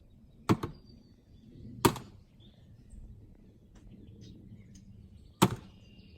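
Three sharp knocks over a faint low rumble: one about half a second in with a smaller knock right after it, one near two seconds in, and one near five and a half seconds in.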